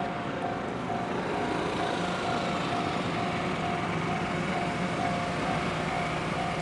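Japanese level-crossing warning bell ringing, an electronic clang repeating about twice a second, over the steady running noise of the 923-series Doctor Yellow Shinkansen train passing slowly over the crossing.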